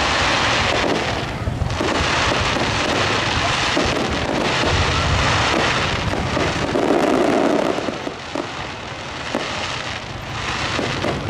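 Fireworks display going off: a continuous run of crackling and popping that eases a little about two-thirds of the way through.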